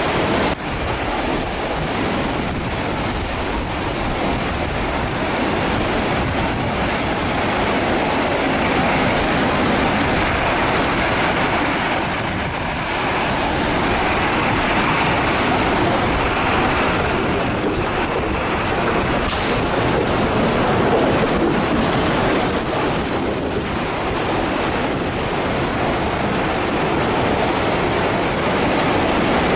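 Steady loud rush of a fast mountain stream pouring across the road at a water crossing.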